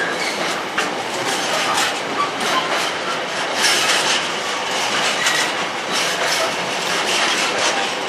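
Intermodal container freight train's wagons passing close by, a steady rumble of wheels on the rails with frequent irregular clacks and knocks from the wheels.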